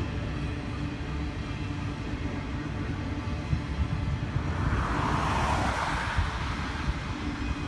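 Double-stack container well cars rolling past on the rails with a steady low rumble. About five seconds in, a car on the road swells and fades past with a rush of tyre noise.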